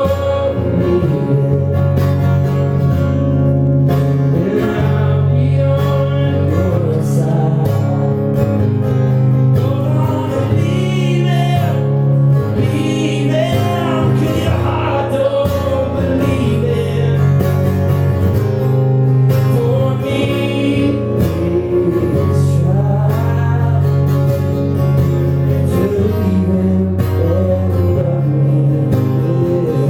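Live song: a man singing with guitar accompaniment, his voice wavering on held notes through the middle.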